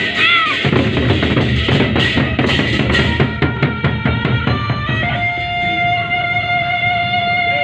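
Gendang beleq ensemble playing: large Sasak barrel drums beaten in a dense, fast rhythm with clashing hand cymbals. About five seconds in, the drumming thins and a held pitched tone comes in.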